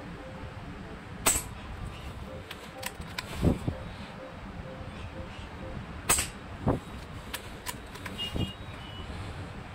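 Sharp cracks and duller knocks from a Diana Outlaw PCP air rifle being handled and fired at steel spinner targets. There are two sharp cracks, about a second and about six seconds in, with three duller knocks between and after them.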